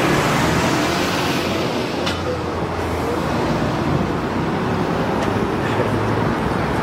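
Steady road traffic: engines and tyres of passing cars and buses, with faint engine tones that rise and fall.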